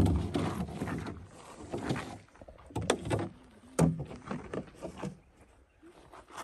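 An empty plastic water bottle handled against gravel: irregular knocks, scrapes and rustles, fading out near the end.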